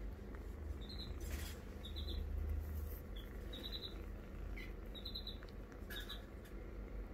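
A kitten being stroked and played with on a lap: a hand rustling over its fur twice over a low steady rumble, with short high-pitched chirps repeating about every second.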